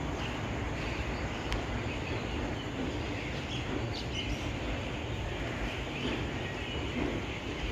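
Steady low rumble of railway station ambience, with short bird chirps now and then.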